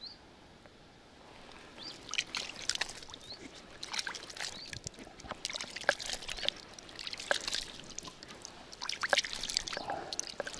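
Light, irregular splashing and trickling of shallow water, starting about a second and a half in.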